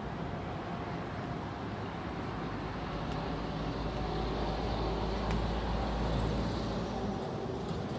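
Steady mechanical rumble with a deep low end that swells from about two seconds in and eases near the end, with a few faint clicks.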